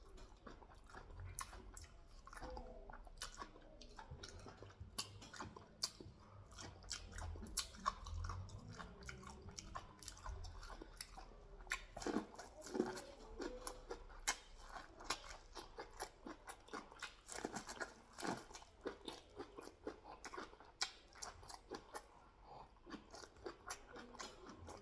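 A person chewing and biting food close to the microphone: a dense run of small, irregular crunches and wet mouth clicks.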